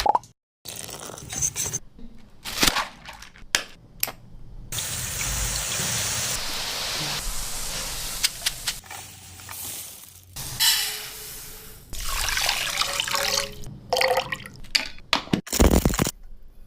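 Cut-together kitchen cooking sounds: knocks and clinks of utensils, and a steady watery hiss that starts about five seconds in and runs for several seconds, as liquid runs or is poured during the sweet's preparation.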